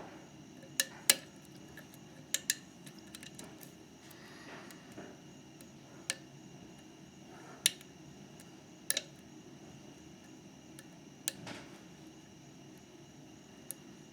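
Metal lock pick and tension tool working the pin stacks of a Mauer MLS euro cylinder lock: scattered sharp metallic clicks, a few every couple of seconds.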